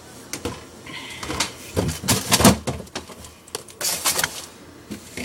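Irregular clattering and knocking of containers and packages being moved around inside a refrigerator while someone searches for an item, loudest about halfway through.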